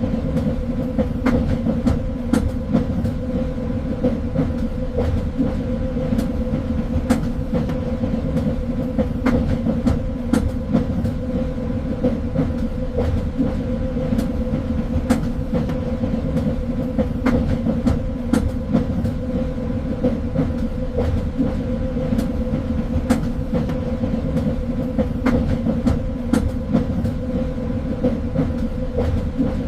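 Train running along the track: a steady low rumble with a constant hum, and irregular sharp clicks and rattles from the wheels and carriage.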